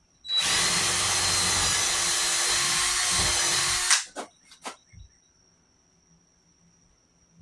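Cordless drill running steadily at full speed for about three and a half seconds, working into wood, then stopping abruptly, followed by three quick clicks.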